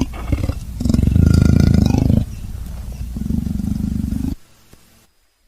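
Leopard growling: a deep rasping call in two long stretches, the second quieter, dying away about four seconds in.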